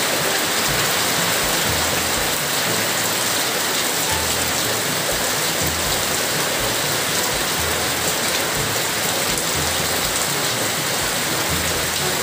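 Heavy rain falling steadily onto a flooded yard and pooled water, an even hiss throughout.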